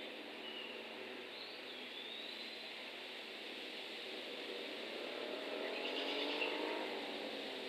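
Steady outdoor hiss with a faint bird whistle that swoops up then down about a second and a half in, and a low drone that swells and rises in pitch between about five and seven seconds.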